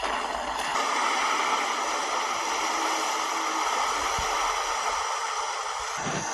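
A steady rushing noise, like spraying or streaming water, that starts abruptly and holds evenly.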